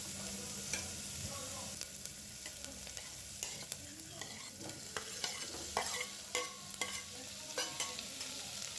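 Chopped tomatoes sizzling in hot oil in a pan, stirred with a spatula that clicks and scrapes against the pan now and then.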